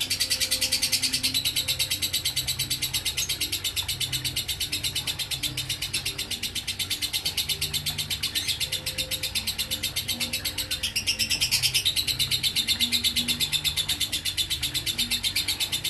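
Lovebird ngekek: a long, unbroken, rapid and even high-pitched chattering trill. It keeps going without a pause, the trait the uploader calls "konslet".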